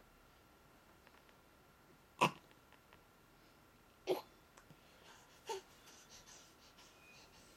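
A baby lying on his tummy makes three short throaty sounds about a second and a half apart, the first the loudest.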